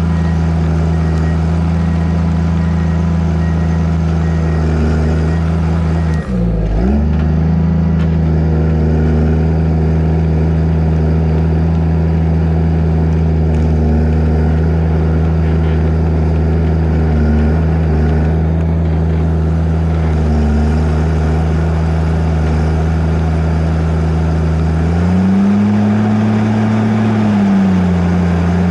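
Diesel engine of a tracked earthmoving machine running steadily under load. About six seconds in, the engine note briefly drops sharply and recovers. Near the end it rises for a couple of seconds and settles back.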